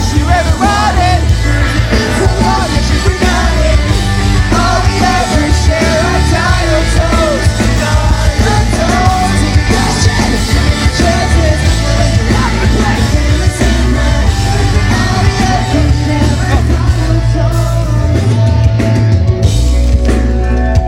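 Pop-punk band playing live, a singer's melody over loud full-band rock accompaniment with heavy bass and drums. The low end drops back briefly near the end.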